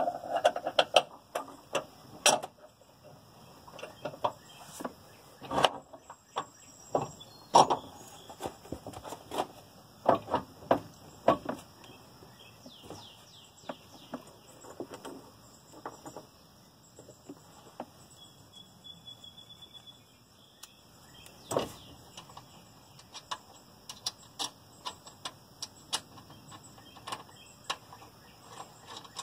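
Irregular metallic clicks, clinks and knocks of hand tools and metal parts being handled during mechanical work, with a few sharper, louder knocks among them.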